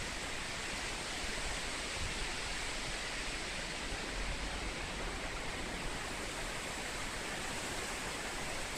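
Storm-force wind blowing through forest trees: a steady rushing noise of leaves and branches, with low rumbles of wind on the microphone.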